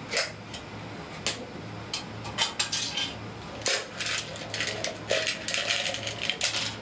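A metal lid is worked off a clear food jar with a few sharp clicks. Then marinated shellfish is tipped and shaken out onto a tray in runs of clattering taps and clinks, densest in the second half.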